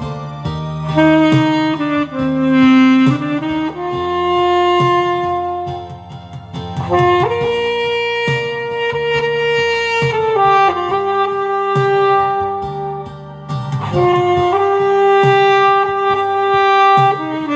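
Alto saxophone playing a slow melody of long held notes over a recorded accompaniment with bass and a light beat.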